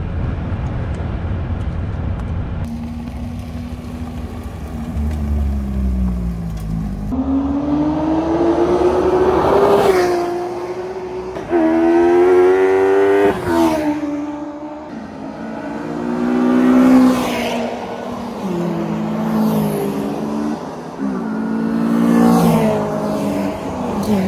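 For the first several seconds, a low rumble of wind and road noise in an open-cockpit kit car under tow. About seven seconds in, it gives way to race car engines on a circuit, revving up through the gears and dropping back on downshifts as several cars pass.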